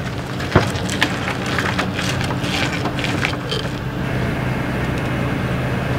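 Tow truck engine idling steadily. Several sharp knocks and clanks of chains and a wooden block being handled come in the first three and a half seconds, then stop.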